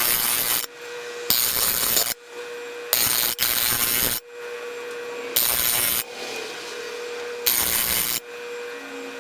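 Repeated rasping strokes, each under a second long and about a second and a half apart, over a steady faint hum.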